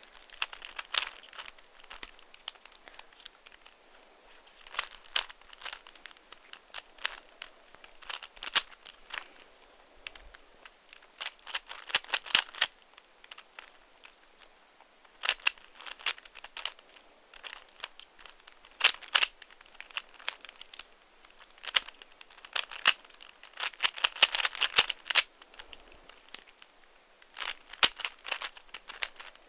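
A Dayan 3x3 speed cube being twisted by hand: bursts of rapid plastic clicking as the layers turn, with short pauses between the bursts.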